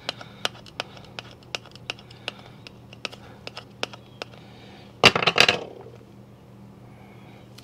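Plastic scraper card rubbed in short strokes over transfer paper on a plastic disc golf disc, ticking two to three times a second while it presses air bubbles out from under the vinyl stencil. About five seconds in comes a louder brief scuffing clatter as the scraper is put down and the disc handled.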